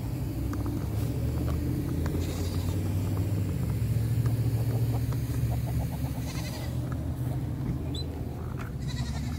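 A few faint, short farm-animal calls over a steady low hum.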